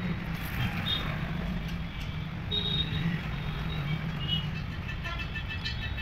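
A motor vehicle's engine running close by, a steady low hum, with a few short faint high-pitched blips over it.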